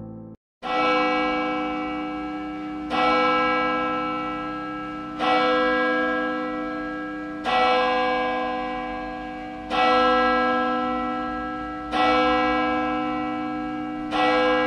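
A single church bell tolling slowly at the same pitch, seven strikes about two seconds apart, each ringing on and fading before the next.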